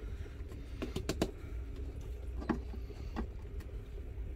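Scattered light clicks and crinkles of a plastic bag being handled and fitted onto a coffee grinder's outlet spout, over a low steady hum.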